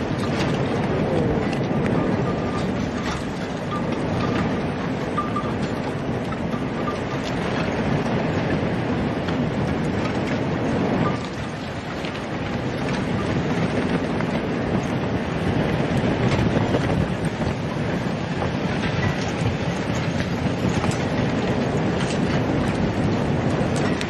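Many ice balls knocking and grinding against one another as the shallow waves move them, a dense continuous clatter of small clicks, with wind on the microphone. It dips briefly about eleven seconds in.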